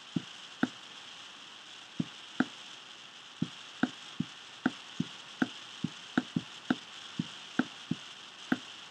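Stylus tapping and clicking on a touchscreen while a word is handwritten: short, sharp taps at irregular intervals, about two a second, over a faint steady hiss.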